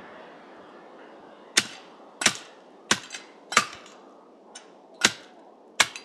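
Six sharp chopping strikes of a steel multitool shovel blade, swung as an axe into small white pine branches. They come about one every two-thirds of a second, with a pause before the last two. Each impact shocks the tool's threaded handle joints, which are loosening under the hammering.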